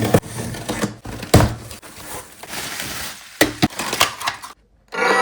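Unpacking and handling noise: irregular clatters, knocks and crunching scrapes. About five seconds in, after a short silence, a plucked string note starts ringing.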